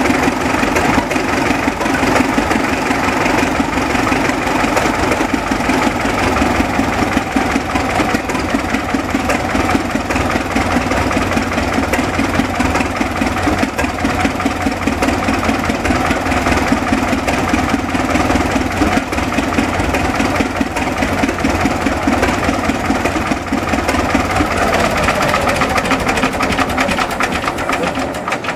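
Vintage Caterpillar crawler tractor's engine idling, with a steady, rapid, even firing beat.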